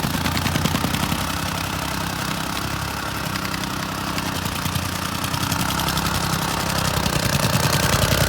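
Gas-powered soil compactor running while tamping backfill dirt, with a fast, steady pounding beat over its engine.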